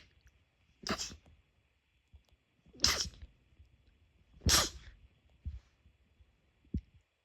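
A run of sharp sneezes: the tail of one right at the start, then three more about one, three and four and a half seconds in, each a short explosive burst. A soft low thump near the end.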